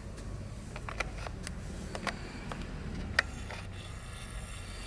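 Quiet room tone: a low steady hum with scattered light clicks and taps, the sharpest about three seconds in.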